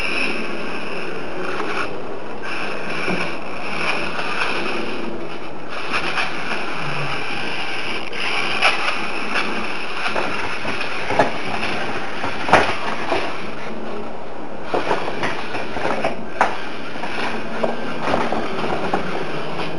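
Whine of a mini RC crawler's tiny geared electric motors (two small servo motors driving a Tamiya 1/32 Mini Monster gearbox), cutting out briefly a few times as the throttle is let off. Sharp plastic clicks and knocks from the tyres and chassis striking the book ramp and mat come through it, loudest around the middle.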